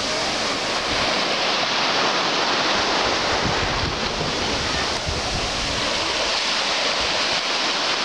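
Small sea waves breaking and washing up on a sandy beach, a steady hiss, with wind buffeting the microphone in low thumps around the middle.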